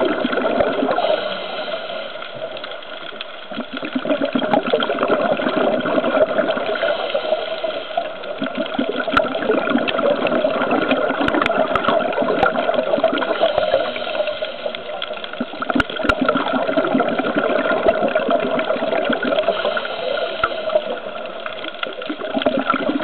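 Underwater sound of a scuba diver's breathing: bubbling, rushing exhalations through the regulator that swell and ease in a slow cycle of about four to five seconds, with a few sharp clicks.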